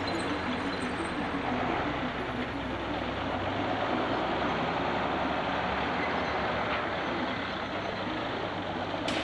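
Engine of a loaded log truck running steadily as the truck drives slowly past, with a continuous rumble and no clear changes in speed.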